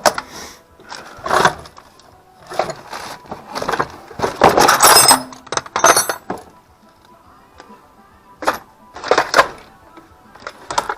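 Metal hand tools clinking and clattering in irregular bursts, loudest about four to five seconds in, with quiet music underneath.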